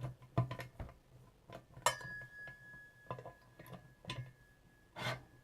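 A hand tool tightening the bolts that fasten a bench drill's metal base: scattered metallic clicks and knocks. One knock about two seconds in leaves a thin ringing tone that hangs for a few seconds.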